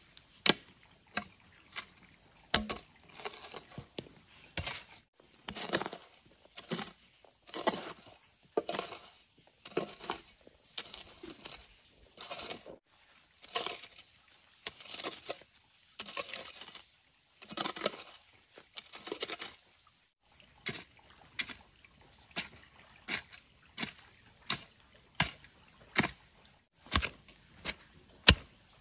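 Rhythmic chopping with a blade, one to two strikes a second, with some scraping between strikes in the middle stretch; from about two-thirds of the way through, the strikes come sharper and evenly spaced.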